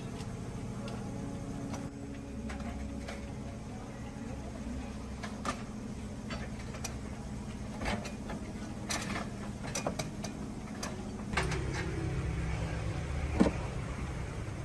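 Steady low mechanical hum that shifts in pitch about eleven seconds in, with scattered sharp clicks and knocks throughout.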